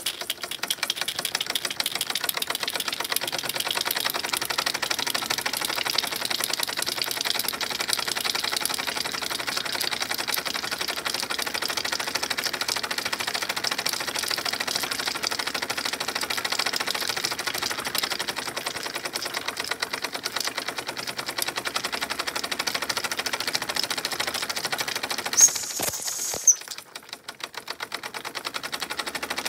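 Mamod miniature steam engine running fast: a rapid, even ticking over a steady hiss. Near the end come two sharp knocks, and the running briefly goes quieter before picking up again.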